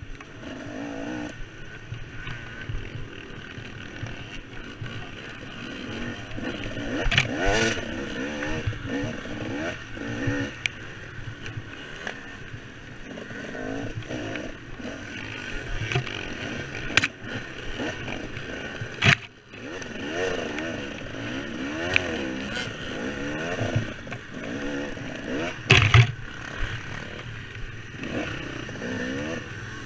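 KTM 300 two-stroke dirt bike engine revving up and down as the throttle is worked over rough trail, with scraping and clatter. Several sharp knocks cut through, the loudest about two-thirds of the way through and again near the end.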